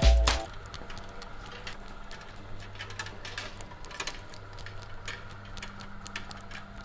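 Kinetic art machine running: many small, irregular mechanical clicks and ticks over a low steady hum. The tail of background music ends about half a second in.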